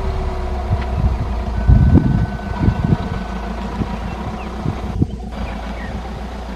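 A vehicle engine running steadily with a low rumble, with a few dull low knocks over it.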